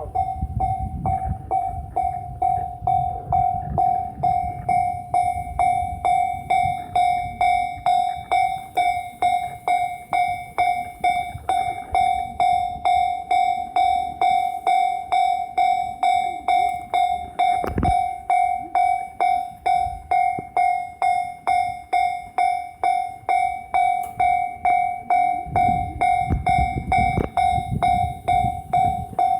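Japanese level-crossing warning bell ringing steadily, one pitched electronic ding repeated about twice a second. A low rumble, typical of a train passing over the crossing, rises under the bell at the start and again near the end.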